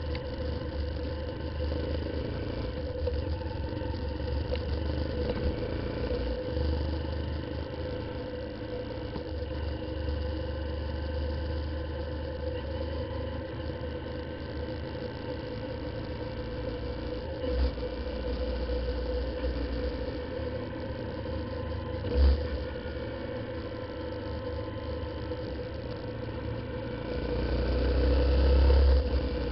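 A Honda CBF125's single-cylinder engine running at road speed, heard from a camera on the moving motorcycle, with a low rumble of wind throughout. Two short thumps come in the middle, and the sound swells louder near the end.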